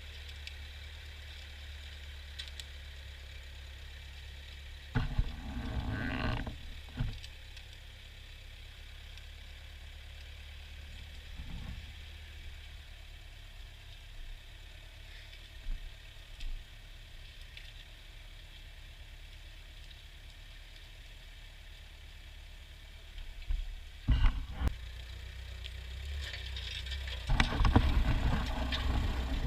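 Ford farm tractor engine running steadily with a low drone. Louder, noisier surges come about five seconds in, again around twenty-four seconds, and from about twenty-seven seconds on.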